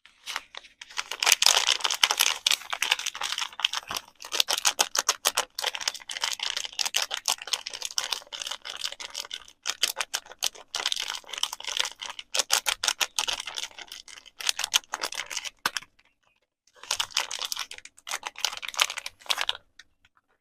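Soap packaging handled by fingers close to the microphone: a long run of rapid, crisp clicking and crackling, a pause of about a second near the end, then a shorter run.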